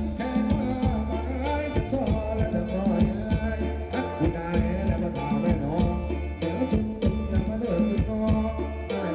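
Thai ramwong dance music from a live band over loudspeakers: a steady drum beat over a bass line, with a wavering melody above.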